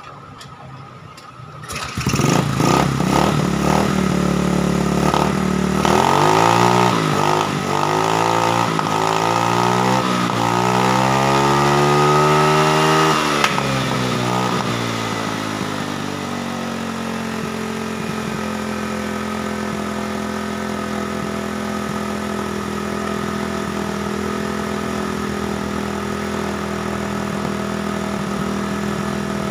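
Rusi Venus scooter's GY6 single-cylinder four-stroke engine catching about two seconds in on a test start after its hard-starting wiring fix, revving up and down for several seconds, then settling into a steady idle.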